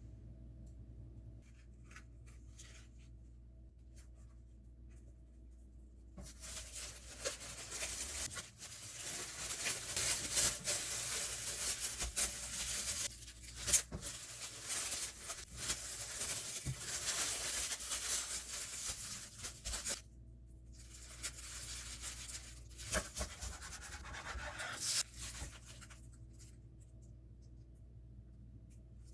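Dry scraping and rustling from hands making a sandwich. It starts about six seconds in and stops around twenty seconds, and a shorter spell follows soon after.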